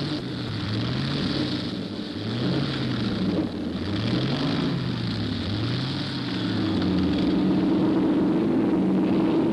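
Vintage race car engines running as the cars get away, their pitch rising and falling over and over about every second and a half, then settling into a steady drone about two-thirds of the way in.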